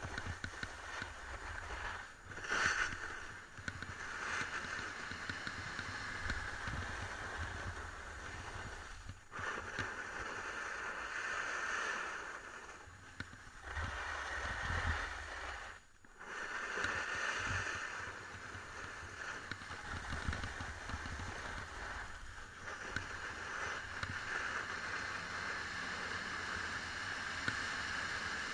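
Skis sliding and scraping over groomed snow on a downhill run, with wind rumbling on the action camera's microphone. The scrape drops away briefly several times.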